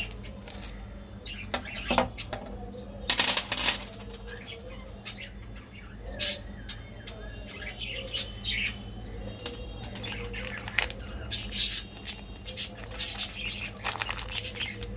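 Candy wrappers handled and opened by hand: plastic and foil packaging crinkling in scattered sharp bursts, the loudest about three seconds in. Near the end comes a dense run of crackling as a lollipop's plastic-foil wrapper is torn open, over a steady low hum.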